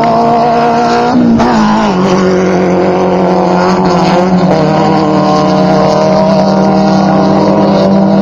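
Off-road race buggy engine running hard and steady, its pitch dropping about a second in and then holding.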